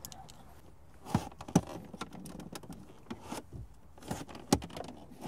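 Hand tools working on plastic dashboard trim: a flathead screwdriver and a plastic panel removal tool tapping, scraping and prying at the trim's retaining clips, heard as several separate sharp clicks and knocks with light scraping between them.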